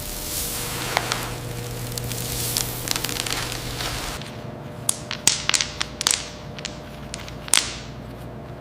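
A steady rushing noise with a low hum, which cuts off about four seconds in to a quieter background with a quick series of sharp clicks and snaps, the loudest near the end.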